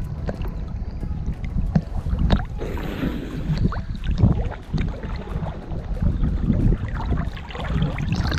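Water sloshing and splashing around a GoPro worn on a swimming dog's harness, with a steady low rumble of water against the camera housing at the waterline. A burst of spray comes about three seconds in.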